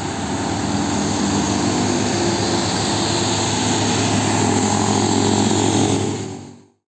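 Diesel engines of heavy container trucks, a red Nissan Diesel tractor unit and a UD Quester among them, running under load as a convoy drives past. The engine hum grows louder as the red tractor and its container pass close, then cuts off suddenly near the end.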